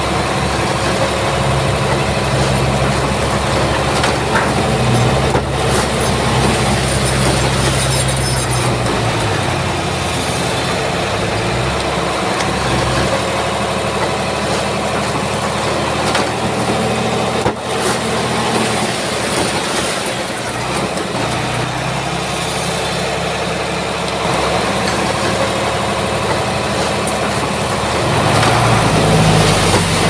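Diesel engine of a small Komatsu crawler bulldozer running under changing load over a steady noisy background. The engine note is strongest through the first ten seconds and again near the end, and eases off in between.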